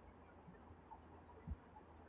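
Near silence: faint steady low hum of room or microphone noise, with one brief low thump about one and a half seconds in.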